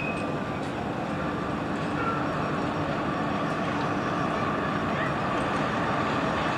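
Steady wash of city road traffic with a Melbourne B2-class tram running along the street, an even rushing noise with a faint steady hum underneath.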